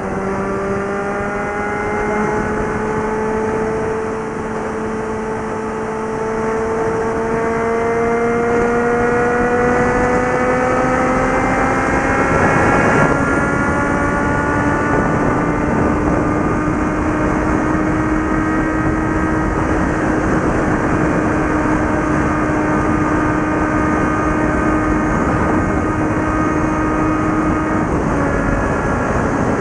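Suzuki GSX650F's inline-four engine and exhaust under way, its pitch rising smoothly for about thirteen seconds as the bike accelerates, then holding steady at cruise and easing slightly near the end. Steady wind rush runs underneath.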